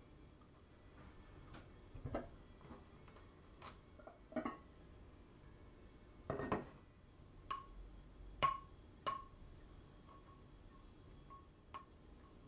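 Scattered light knocks and clinks of ceramic cookware, a ceramic rice pot and its lid being handled, roughly one every second or two. The clearer strikes ring briefly.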